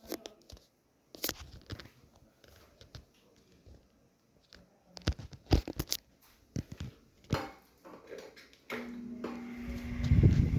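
Clicks and knocks of a Ventisol electric fan being handled. Near the end the fan is switched on: a steady motor hum, then a rising rush of air from its temporary three-blade propeller.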